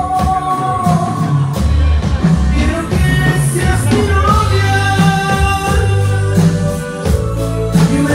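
Live band playing a romantic Spanish-language song, heard through the studio PA: a melody of held notes over a strong bass line and a regular drum beat, with electric guitar, drums and keyboard.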